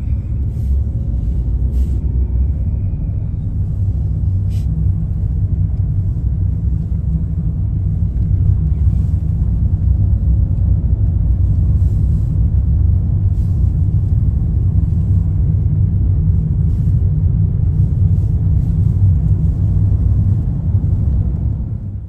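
Steady low rumble of a car driving along a road, heard from inside the cabin: engine and tyre road noise, growing a little louder some seconds in.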